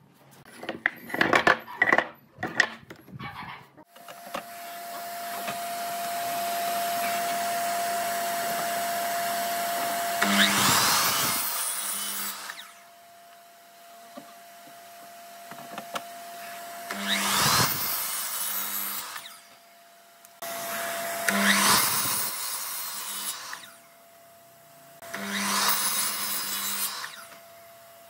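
An electric miter saw running and making four cuts through wood, each a loud rasping pass of a few seconds, with the motor running on more quietly between cuts. A few sharp wooden knocks come first.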